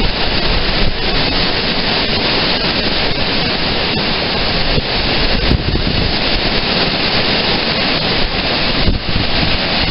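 Strong wind rushing and buffeting the microphone, a loud, unbroken noise with a heavy low rumble.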